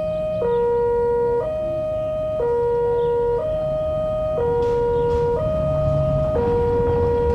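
Electronic two-tone railway warning alarm sounding as a train approaches, switching back and forth between a higher and a lower pitch about once a second, over a low rumble.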